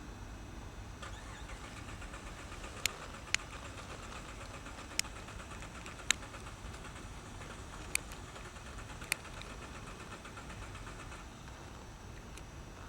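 A car engine cranking on its starter for about ten seconds without catching, with six sharp clicks along the way; the cranking starts about a second in and stops near the end. It sounds like a car that is out of gas.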